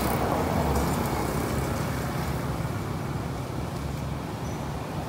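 Steady low rumble of a motor vehicle engine running, as from road traffic.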